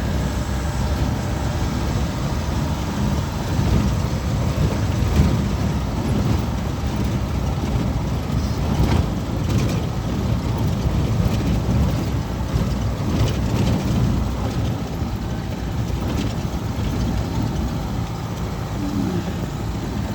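A vehicle engine running steadily while travelling a rough dirt road, with a few scattered knocks and rattles in the middle.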